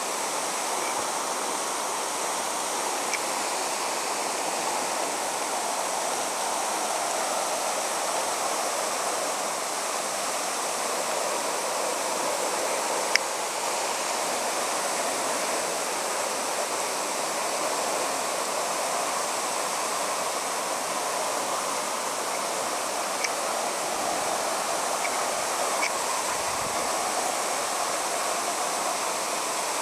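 Water running down the rock face, a steady rushing, with a few faint clicks, the sharpest about thirteen seconds in.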